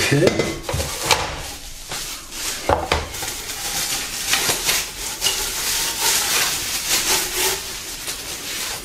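Plastic packaging crinkling and rustling as grill parts are handled and unwrapped, with scattered light clicks and knocks of small hard pieces.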